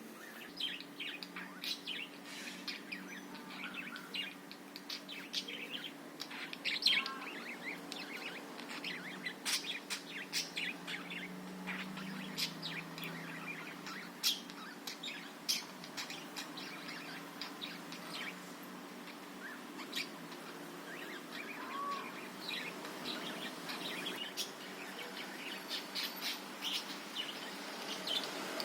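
Budgerigars chattering: a dense, irregular run of short high chirps and twitters, over a steady low hum.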